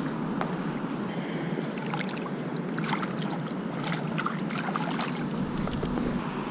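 Steady rush of river water, with a run of short, sharp splashes between about two and five and a half seconds in as a hooked tilapia thrashes at the surface.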